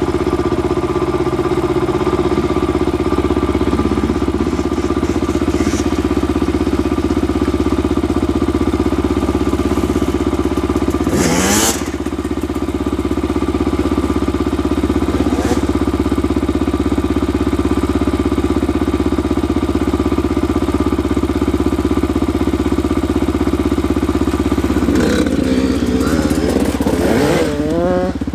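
Dirt bike engine idling steadily. About eleven seconds in it gives a brief rev, and near the end it is revved up and down several times.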